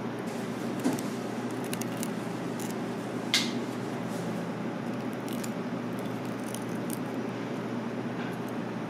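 Chopsticks breaking into a crisp breaded fried mahi-mahi fillet: scattered crackles and clicks of the crust, the loudest a sharp crack about three and a half seconds in, over a steady low room hum.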